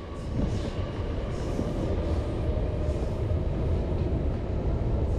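Low, steady rumble of a passing train, swelling about half a second in and then holding, with a faint steady whine above it.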